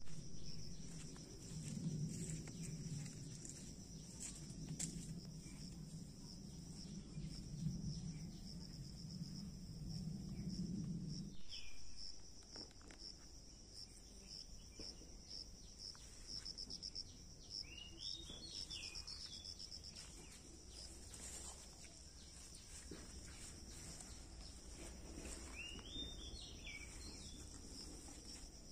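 Insects shrilling in a steady high drone with a fast pulsing, while a bird gives short rising-and-falling whistled calls a few times. A low rumble under the first eleven seconds or so stops abruptly.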